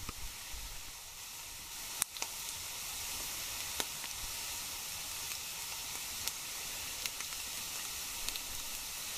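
Chanterelle mushrooms sizzling steadily in a hot frying pan, with scattered small pops and crackles.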